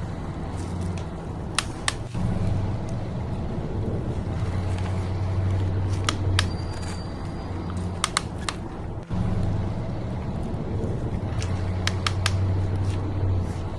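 Small electric motor of an RC construction truck humming, swelling and easing several times, with scattered sharp clicks.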